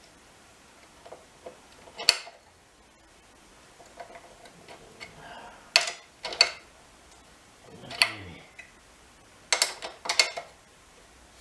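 Sharp, isolated clicks and taps of small metal parts and tools being handled during motorcycle wiring work. There are about seven: single ones about two, six and eight seconds in, and a quick run of three near the end.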